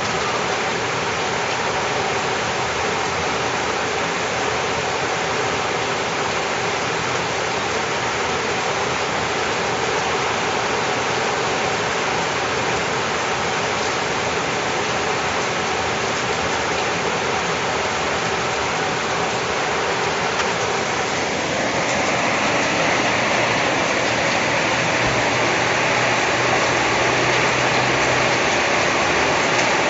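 Steady rain falling, an even hiss of many drops. About two-thirds of the way through it grows a little louder and brighter, as the downpour picks up.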